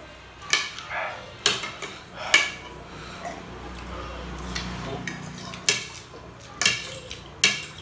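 Metal spoon and fork clinking and scraping against ceramic plates while eating noodles: a string of sharp clinks, about six loud ones, spread unevenly.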